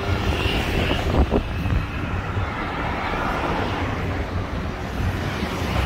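A motor scooter's small engine running as it passes close by, over a steady low rumble.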